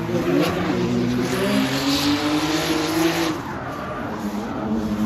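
Drift car engine revving up and down as the car slides, with tyres squealing. The sound drops back about three and a half seconds in.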